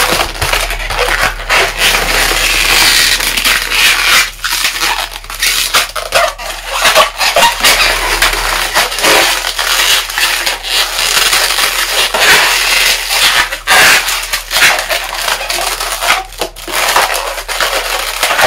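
Latex modelling balloons rubbing and scraping against each other and the hands as they are twisted and locked together, a continuous rough rub broken by many short sharp scrapes.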